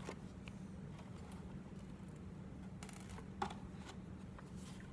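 A few faint clicks and light handling noises from small screws and the fish's plastic parts, with the most distinct click about three and a half seconds in, over a low steady hum.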